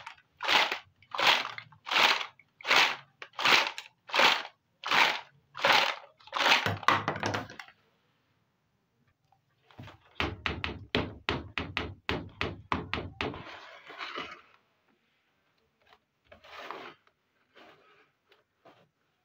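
Miniature plastic toy kitchen pieces clattering together in a plastic basket as it is shaken, about ten even rattles over the first seven seconds. After a pause there is a quick run of plastic clicks and knocks, then a few scattered knocks, as a plastic toy dollhouse is handled and opened.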